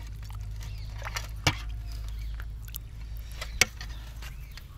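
Two sharp knocks of a serving utensil against a cooking vessel as cooked prawns are scooped out, the second louder, with a few fainter ticks between.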